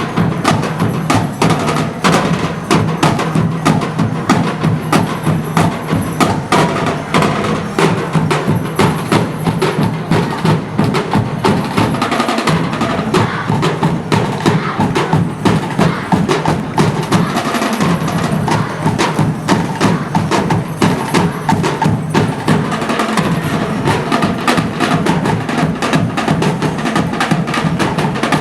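Percussion music: drums and sharp knocking strokes in a steady, fast rhythm.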